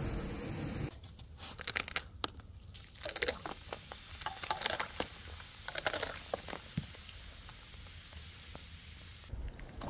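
A rushing noise that cuts off about a second in, then irregular clusters of small cracks and crackles: something brittle being crunched and crushed.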